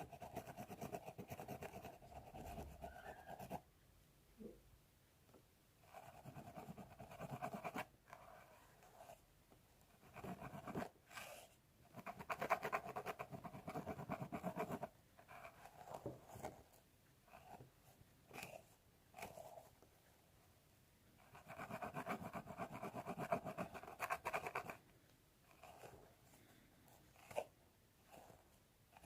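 Fingernails scratching through hair on a scalp, in bursts of rapid strokes lasting a few seconds each with short pauses between.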